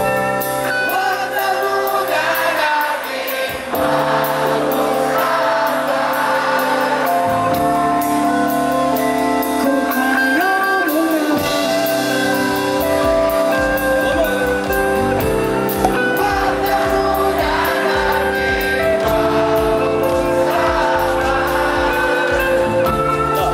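Live pop band playing with a large crowd singing along in call-and-response at the start of the song. The band's accompaniment fills out with a fuller low end and steady beat about halfway through.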